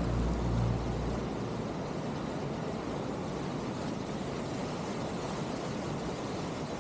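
Steady rush of a creek and its waterfalls. Low notes of background music die away about a second in.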